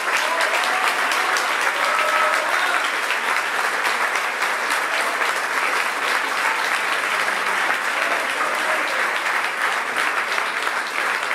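Audience applauding steadily, with a few voices calling out in the first few seconds.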